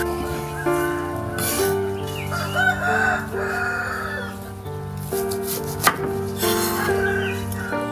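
A rooster crowing once, about two seconds in, over background music of sustained notes. There is a single sharp knock near six seconds.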